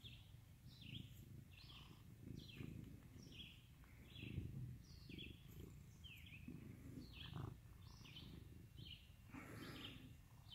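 A bird repeating a short falling chirp, about three every two seconds, over a faint low rumble.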